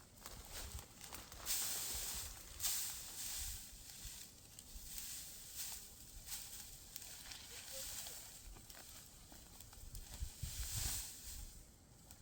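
Irregular dry rustling swishes, some lasting about a second, with short gaps between them.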